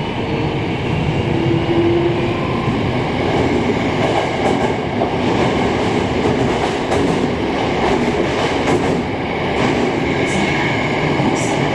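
Hankyu 9000 series electric train running, heard from inside the car: a steady rumble of wheels on rail with faint gliding motor tones and a few clacks over rail joints.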